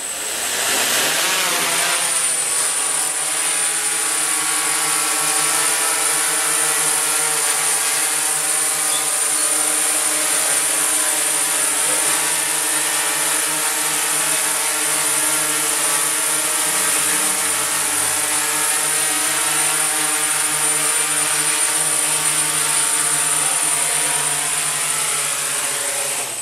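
Hexacopter drone's electric motors and propellers spinning up, then a steady buzzing hum with a high whine as it flies. The sound cuts off sharply near the end as the motors stop after landing.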